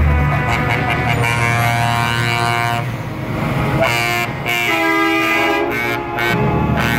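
Semi-truck air horn sounding two long blasts as tractor-trailers roll past, the second blast at a different pitch. Deep diesel engine rumble is heard at the start and again near the end.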